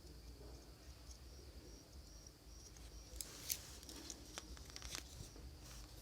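Faint clicks and light scraping of small tools and parts being handled during a phone battery swap, strongest about halfway through, over a steady, regular high-pitched chirping.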